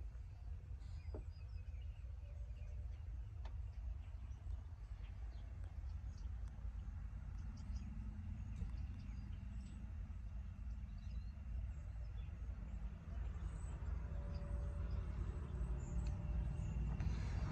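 Outdoor ambience: a low, uneven rumble with faint bird chirps over it, growing somewhat louder near the end.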